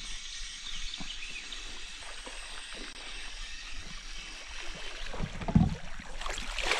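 Steady background hiss, then a hooked smallmouth bass splashing at the surface as it is reeled in to the kayak, louder and more frequent toward the end.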